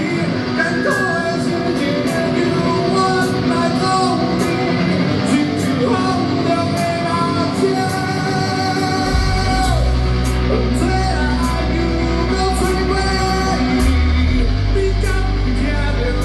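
Rock song with a singer, guitar and drums playing steadily; a heavy bass line comes in about nine seconds in.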